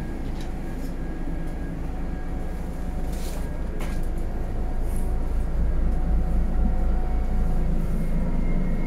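Scania CityWide CNG bus engine idling, a steady low rumble heard from inside the cabin that grows louder toward the rear of the bus. A couple of sharp clicks about three seconds in.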